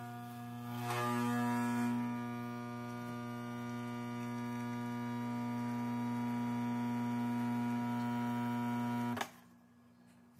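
Espresso machine's pump humming steadily while pulling a shot into a glass, growing louder about a second in, then cutting off suddenly as the shot ends about nine seconds in.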